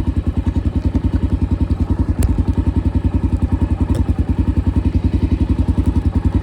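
Honda XR dirt bike's single-cylinder four-stroke engine idling steadily in neutral, an even rapid thumping of about ten beats a second. A sharp click about two seconds in and a lighter one around four seconds.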